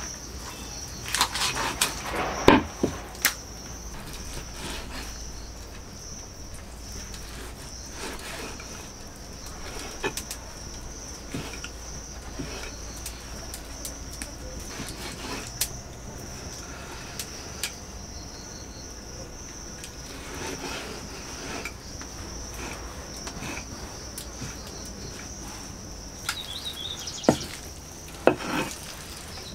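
A large curved knife chopping raw chicken on a wooden log chopping block: irregular sharp knocks on wood, some in quick clusters, over the steady high chirring of insects.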